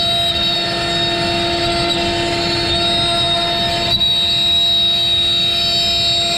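Avid CNC router spindle running with a steady whine over the noise of a 1/8-inch downcut bit milling a pocket in a wooden board. The sound shifts abruptly about four seconds in.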